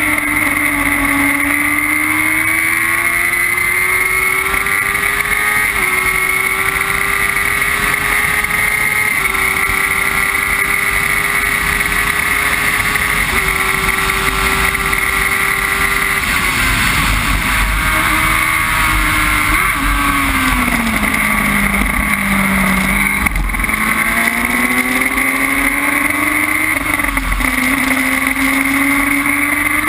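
Onboard sound of a Formula Jedi single-seater racing car's engine at full throttle, rising in pitch through quick upshifts. About halfway through it drops in steps as the driver brakes and shifts down, then climbs again as the car accelerates out of the corner.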